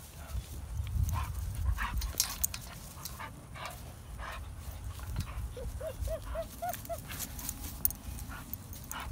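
Bull terrier at play, huffing in short noisy breaths, with a quick run of five short whines a little past the middle.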